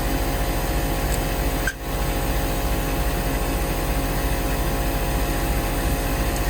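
A small engine running steadily, with a brief drop-out about two seconds in.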